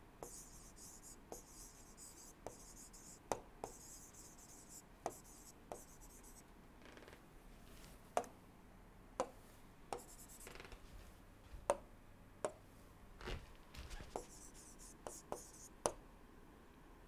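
Stylus writing on a tablet screen: faint scratchy strokes as letters are drawn, with scattered sharp taps of the pen tip on the glass.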